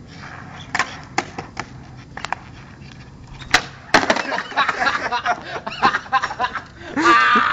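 Skateboard on concrete: a few light clicks as the board rolls, then a sharp tail pop about three and a half seconds in and a second crack half a second later as the board hits the pavement on a tre flip (360 flip) attempt, followed by the board clattering on the concrete. Voices shout and laugh near the end.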